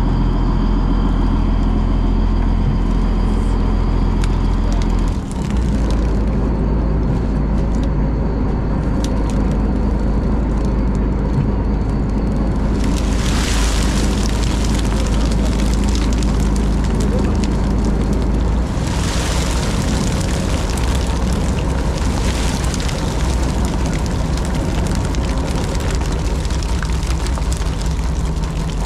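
Fishing trawler's engine running steadily with a loud low drone. About 13 seconds in, a louder rushing, slithering noise joins it as the catch slides out of the net onto the deck, swelling again a little later, with crew voices over it.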